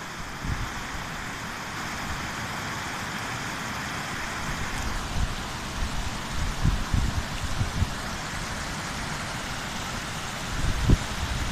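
Mountain stream rushing over rocks: a steady rush of white water. Several low rumbles hit the microphone, the strongest near the end.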